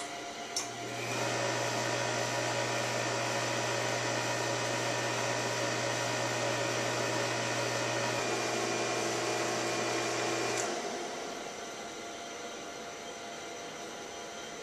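Van de Graaff generator switched on with a click, its electric motor and belt drive running with a steady hum. About ten seconds later another click comes and the motor sound stops, leaving a fainter steady hiss.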